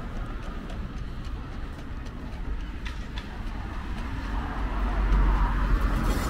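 Street traffic: cars going past on the road, the tyre and engine rumble swelling near the end as a car passes close by.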